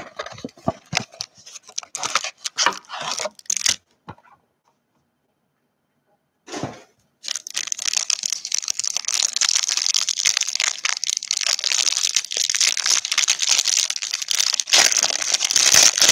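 Clear plastic wrapper of a trading card pack being crinkled and torn open, a dense crackling rustle. It starts with scattered crackles, drops out completely for a few seconds, and runs on continuously from about seven seconds in.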